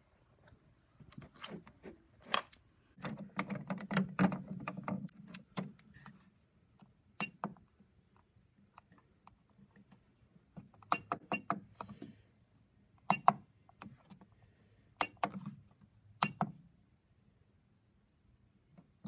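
Irregular clusters of sharp clicks and taps from buttons being pressed on a laptop and on a da Vinci Jr. 3D printer's control panel, with a low rumble under some of them.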